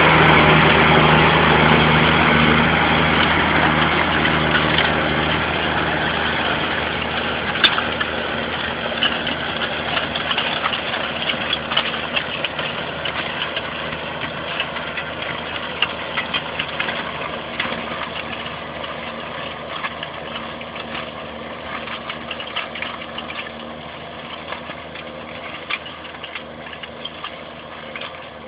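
Tractor engine running steadily while ploughing, fading gradually as it moves away, with scattered short clanks and rattles.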